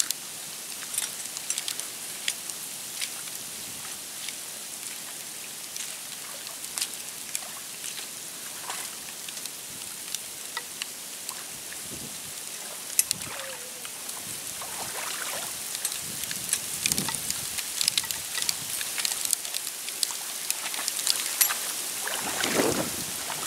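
Pond water dripping and splashing in a shallow channel, scattered drips and small splashes that get busier and louder through the second half.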